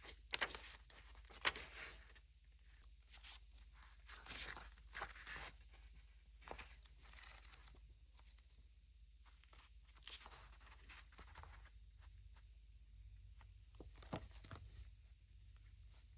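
Faint, scattered rustles and taps of packaging being handled, with near silence between them.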